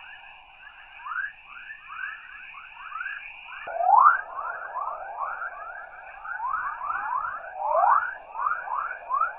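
Earth's 'chorus', plasma waves in the Van Allen radiation belts recorded by NASA's RBSP (Van Allen) probes and played as sound: a dense stream of overlapping rising chirps, several a second, like birdsong or dolphin calls, over a steady higher hiss. The chirps come from charged particles interacting with the radiation belts.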